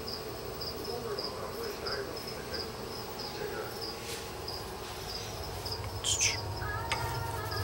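Feeder crickets chirping steadily, short high chirps about two to three times a second. A brief rustle about six seconds in.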